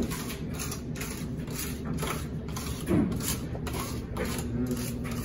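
Hand tool scraping across tiles in repeated short strokes, about two or three a second, as grout is worked over the backsplash joints, with a louder bump about three seconds in. A steady low hum runs underneath.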